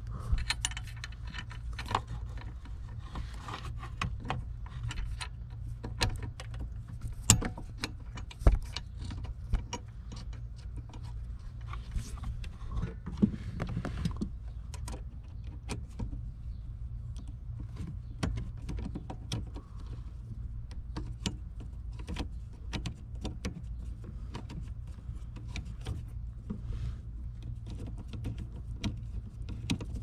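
Ratchet and socket on an extension working a bolt at the column gear shift linkage, giving many irregular metallic clicks and ticks, with tool-on-metal knocks in the first half, over a steady low hum. The bolt is being tightened to take up play in the shift lever.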